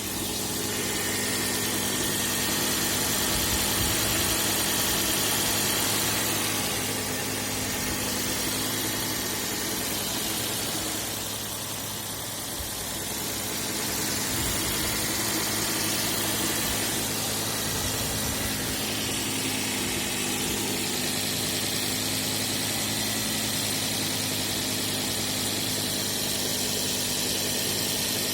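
Volvo S60's 2.4-litre five-cylinder engine (B5244S2) running steadily, its level dipping briefly about twelve seconds in.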